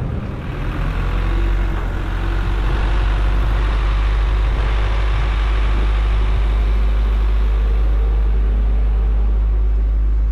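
A motor vehicle's engine idling steadily with a deep low hum, growing louder over the first couple of seconds and then holding even.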